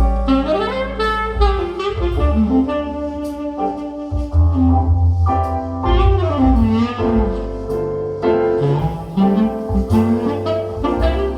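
Instrumental jazz with a saxophone playing the melody in gliding phrases over double bass and guitar, played back through hi-fi loudspeakers with a strong bass.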